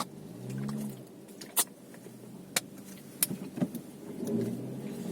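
Car running, heard from inside the cabin, with a short low hum under a second in and several sharp, irregular clicks; the car noise grows louder from about four seconds in.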